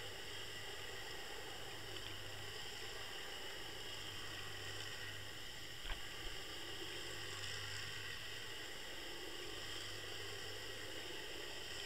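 Steady underwater hiss with a faint hum, picked up by a Water Wolf underwater camera towed through the water on a fishing line. A couple of faint knocks come about six seconds in.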